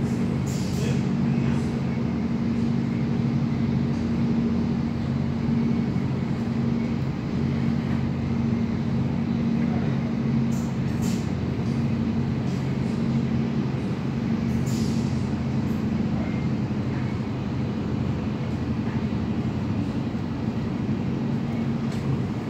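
Steady running noise heard inside an NS VIRMm double-deck electric train travelling at speed: an even rumble with a steady low hum. A few short clicks come through, about a second in and again around the middle.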